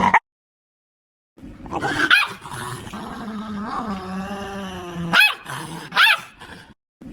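An aggressive dog growling and snarling, a long wavering growl broken by sharp barks: one about two seconds in and two more near the end.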